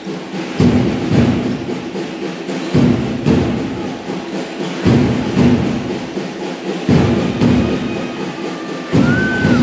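Drum beats in a steady two-stroke pattern, one pair of booming strokes about every two seconds, echoing in a gym. Near the end there is a short high squeak.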